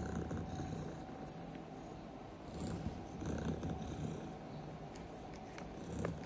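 Domestic cat purring, the rumble swelling and easing every second or so, with short very high chirps now and then over it.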